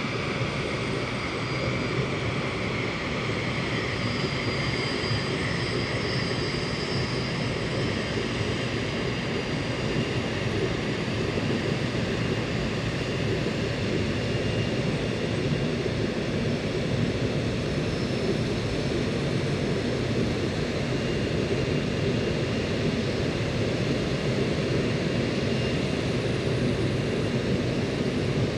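Lockheed L-1011 TriStar's three Rolls-Royce RB211 turbofans running at taxi power as the airliner rolls past: a steady rumble with a faint high turbine whine.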